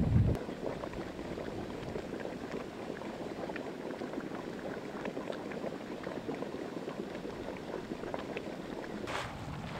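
Geothermal mud pot and steam vent bubbling, a steady irregular crackle of small pops. Wind buffets the microphone for a moment at the start.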